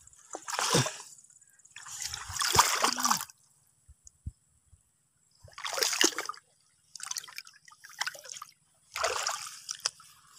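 Hands splashing and sloshing in shallow, muddy water as flat stones are lifted and turned over, in several short bursts with quiet gaps between.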